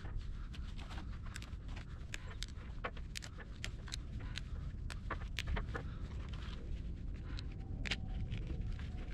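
Dry twigs and brushwood crackling and snapping in many sharp, irregular clicks, over a low rumble.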